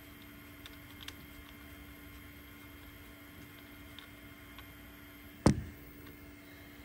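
A few faint clicks of small metal parts and a hex screwdriver being handled while a screw is fitted into a stepper motor's shaft coupler, over a low steady hum. About five and a half seconds in comes one sharp, loud thump, the loudest sound here.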